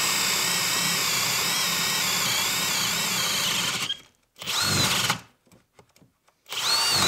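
Kobalt brushless hammer drill boring a large hole in a wooden post. The motor runs steadily under load for about four seconds, then stops abruptly. Two short trigger bursts follow, each spinning up and winding down.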